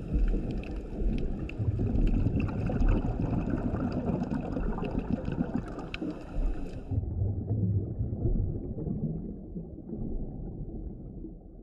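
Underwater ambience picked up by a camera in its housing: a steady low water rumble with scattered sharp crackling clicks. About seven seconds in, the sound abruptly turns muffled as the highs drop away, and the rumble fades near the end.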